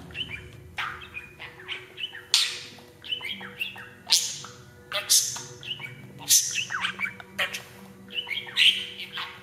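Pet budgerigar chattering: a busy run of short chirps and clicks broken by about half a dozen loud, harsh squawks.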